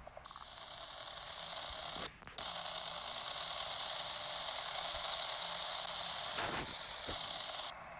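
Shortwave static from a WebSDR receiver in AM mode with a wide filter: an even, hissy rush of band noise. It cuts out briefly about two seconds in, and near the end its top drops away as the filter narrows.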